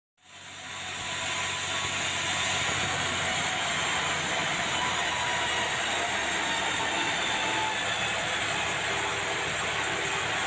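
Sawmill machinery running steadily, a dense, even mechanical noise with a high hiss. It fades in over the first second or two.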